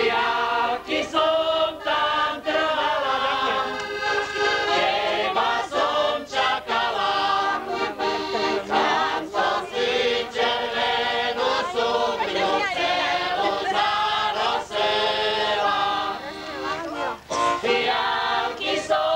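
A group of men and women singing a folk song together in chorus, phrase after phrase with short breaks between.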